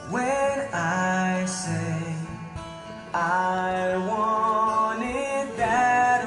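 A young woman singing into a handheld microphone over backing music, with held notes that slide in pitch.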